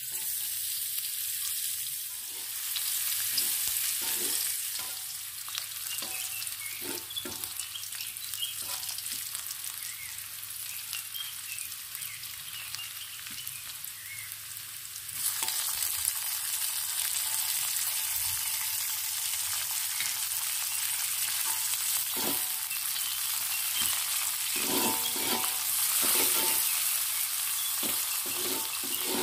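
Shallots and garlic frying in oil in a wok, a steady sizzle, with a metal spatula scraping and tapping the pan as it stirs. The sizzle grows louder about halfway through.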